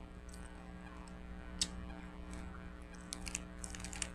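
Eating sounds: chewing and biting food, with short crisp clicks, one about a second and a half in and a quick run of them near the end, over a steady low hum.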